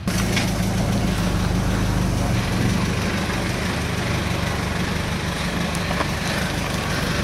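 Steady outdoor street noise with a motor vehicle engine running close by, a low even hum under the traffic hiss; it starts abruptly.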